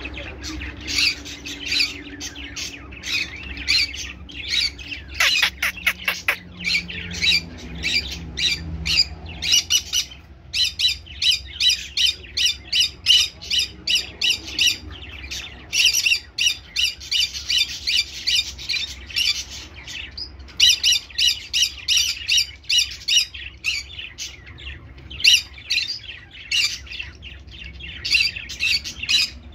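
Conure parrot squawking in fast, repeated calls, several a second, in runs broken by short pauses.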